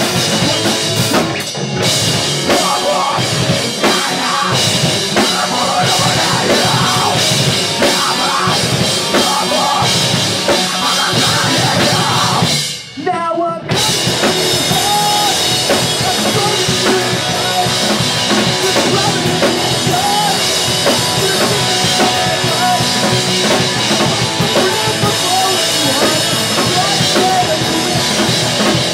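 Pop punk band playing loud live, with drum kit, electric guitars and bass. The band stops short for under a second about thirteen seconds in, then comes back in.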